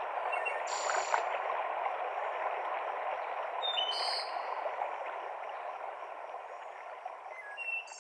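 Mountain stream cascading over rocks with a steady rush of water, and three short, high bird chirps. The sound gets gradually quieter throughout, fading out.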